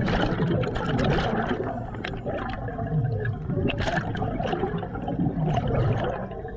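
A diver's breathing underwater: exhaled air bubbling and gurgling in low, muffled bursts, with small clicks.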